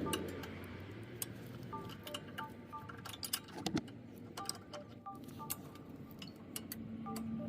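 Soft background music with short notes repeated at a few fixed pitches, with many sharp metallic clicks and clinks scattered through it.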